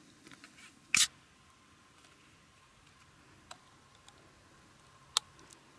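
Screw cap of a plastic drink bottle being twisted off and handled: a few small clicks, then one loud short crackle about a second in, and single sharp plastic clicks near the middle and near the end.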